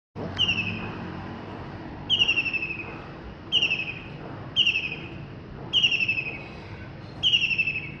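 A white-throated kingfisher calling loudly: six fast, rattling, whinnying trills, each under a second long and falling slightly in pitch, repeated every second or so.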